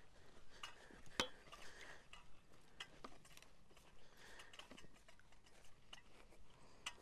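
Quiet footsteps through grass with light clicks and clinks from a carried digging spade and metal detector, the sharpest about a second in.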